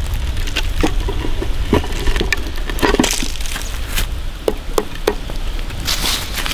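Irregular knocks and scrapes of wooden sticks against a hardened salt-and-herb crust set down on a wooden board, with loose salt grains pattering off it. A steady low rumble runs underneath.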